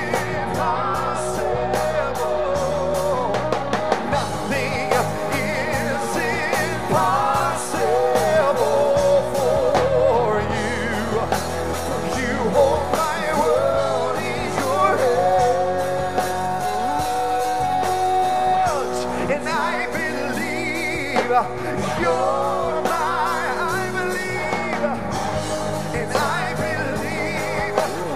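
Live Christian band playing with electric guitars while a man and a woman sing into microphones, with one long held note about halfway through.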